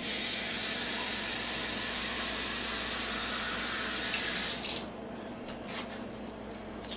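Water running in a steady stream into a cup, starting suddenly and stopping after about four and a half seconds, followed by a few light clicks.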